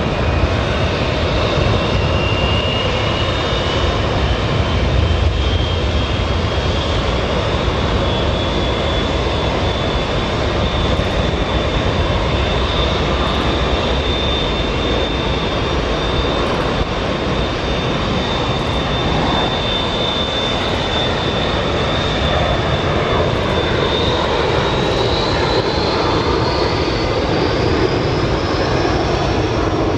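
Boeing 747's jet engines at taxi power: a steady low rumble under a high whine that climbs a little at first, holds, then rises again over the last few seconds.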